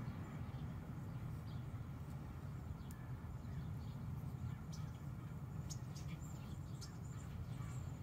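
Quiet steady low background hum, with faint scattered high ticks through the middle.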